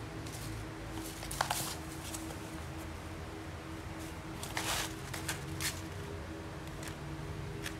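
Crinkling of plastic sheeting and rustling of cardboard as a kitten scrambles and pounces through them, in short bursts about a second and a half in and again around five seconds, over a steady low hum.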